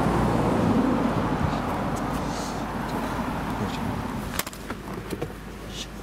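Outdoor traffic and street noise through the open door of a Honda Civic while someone gets in. A little over four seconds in, the door shuts with a knock and the noise drops to the quieter car cabin, with a few light clicks after.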